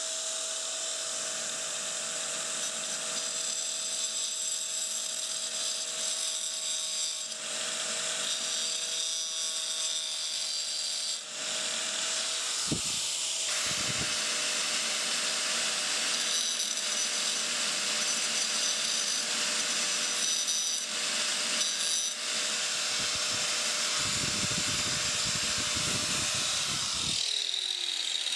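Small 4-inch angle grinder with a diamond wheel cutting granite to finish a corner cut: a steady motor whine over a harsh grinding hiss. Near the end it is switched off and winds down, its pitch falling.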